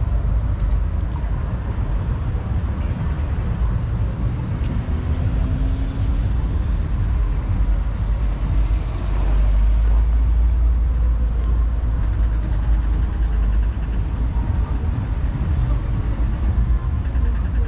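Steady low rumble of wind on the microphone and road noise while riding a bicycle through city traffic, a little heavier around the middle.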